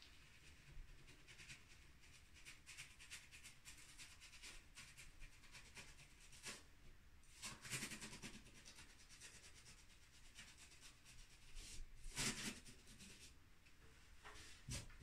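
Paintbrush cutting in paint along the wall at the ceiling line: faint, quick scratchy brush strokes in runs, with a brief louder scrape about twelve seconds in and another short sound near the end as the brush goes back to the paint can.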